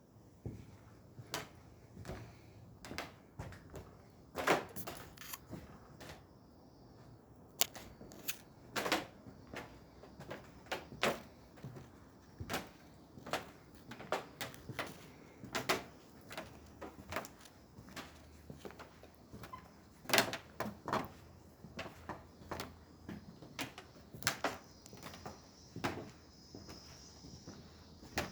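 Irregular wooden knocks and clicks, one or two a second, some louder than others.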